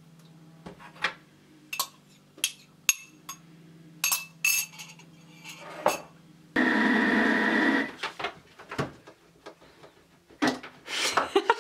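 Light clinks and knocks of glass and dishes around a Thermomix's steel mixing bowl as eggs are tipped in, then a loud steady rushing noise for about a second just past the middle.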